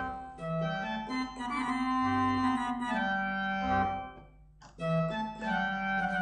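Harmonium playing the instrumental introduction to a devotional song, sustained chords over a low bass line. It breaks off briefly near the end and starts again.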